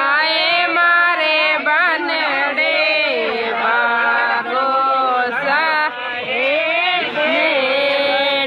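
Several voices singing together in long held notes that slide up and down in pitch.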